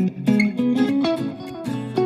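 Background music: a plucked guitar playing a melody of short notes over a low bass line.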